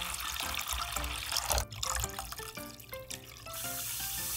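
Water pouring in a stream into a saucepan, a splashy rush that stops abruptly about a second and a half in. Another pour starts near the end. Light background music plays throughout.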